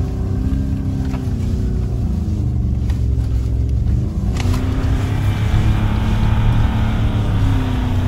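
Ford Raptor pickup's twin-turbo V6 revving hard as the truck ploughs through deep snow, its pitch rising and falling with the throttle. The sound changes abruptly about four seconds in, turning brighter.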